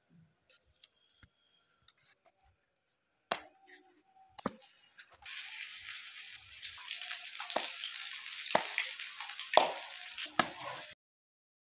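Shami kebabs frying in oil in a pan: a steady sizzle sets in about five seconds in, with a few sharp knocks, and cuts off suddenly near the end. Before the sizzle, only faint clicks and knocks.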